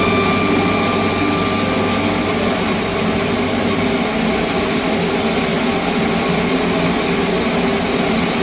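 Loud, steady rushing noise of machinery running during the refinishing of an enamel cast-iron bathtub, with a low hum that drops out about halfway through.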